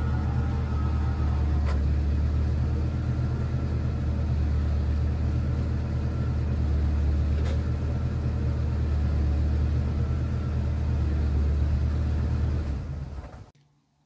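The 1987 Jeep Comanche's AMC 4.0 L straight-six idling steadily, with two faint clicks along the way. The idle fades out shortly before the end.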